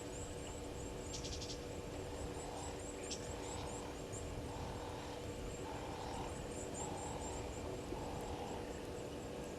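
Faint bush ambience at a waterhole. Rapid high chirps run throughout, from birds or insects, and from a couple of seconds in a short low call repeats about once a second for several seconds. A few clicks sound early on, over a steady low hum.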